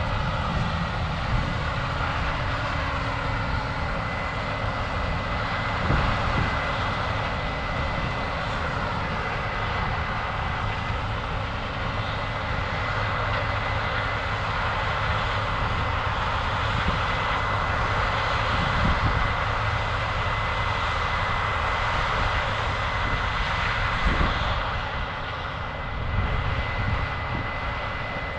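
Combine harvester running steadily while harvesting corn: a continuous machine drone with a thin, steady high whine over it and a few knocks. It quiets slightly near the end.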